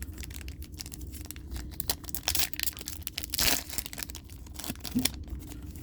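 Foil Yu-Gi-Oh! booster pack wrapper crinkling and being torn open. There are many small crackles and a louder tearing rasp about three and a half seconds in.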